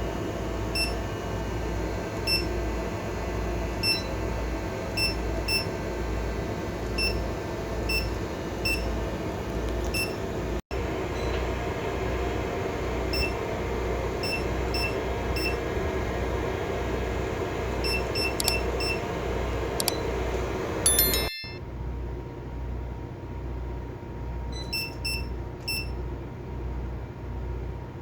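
Short electronic beeps at irregular intervals, typical of key presses on a marine AIS unit being programmed, over a steady low hum of the tug's machinery with a regular throb. The hum drops suddenly about two thirds of the way through while the beeps carry on.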